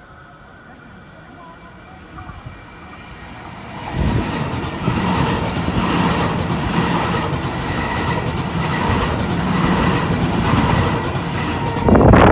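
A Sydney Trains electric passenger train approaching and passing close by, its wheels running on the track. It builds over the first few seconds, runs loud for about eight seconds, and cuts off suddenly at the end.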